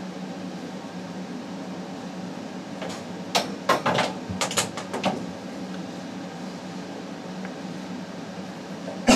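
Handling noises from steel snake tongs and a hook on a cloth snake bag: a cluster of short knocks and rustles about three to five seconds in, over a steady low room hum. A sudden loud burst comes at the very end.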